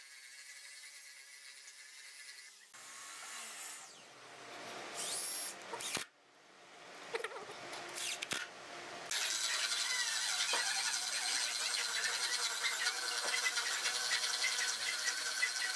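Cordless drill at work in plywood: short, stop-start runs while driving a screw into a concealed cabinet hinge, then, from about nine seconds in, a loud steady whine as it bores a hinge-cup hole with a flat-bottomed boring bit.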